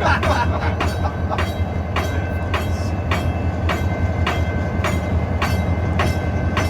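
EMD SD40-2 diesel locomotive's 16-cylinder two-stroke engine running at low throttle, heard from inside the cab as a steady low drone while the train creeps away. A regular ticking about twice a second and a faint steady whine run alongside.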